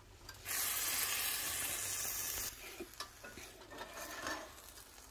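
A wet topping ladled onto a dosa on a hot tawa sizzles loudly for about two seconds, then cuts off suddenly, leaving a few light scrapes of the ladle spreading it.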